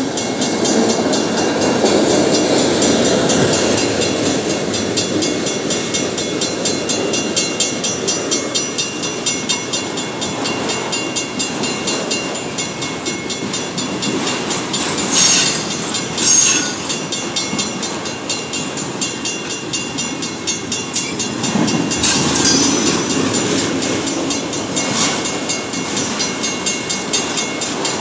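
Freight train of autorack cars rolling past at a grade crossing: steady wheel rumble and clatter on the rails, with a few sharp clanks about halfway through and later. A steady high ringing, the crossing signal's bell, runs over it.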